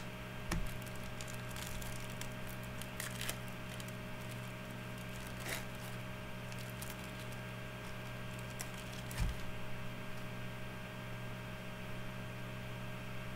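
Hockey trading cards and foil packs handled on a table: scattered light rustling, crinkling and clicks, with a soft thump near the start and another about nine seconds in, over a steady electrical hum.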